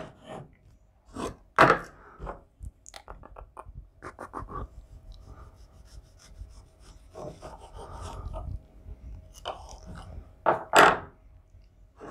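A lemon being cut with a kitchen knife on a wooden cutting board and handled on a plastic citrus reamer: scattered knocks, clicks and scrapes, with the loudest knocks near the end.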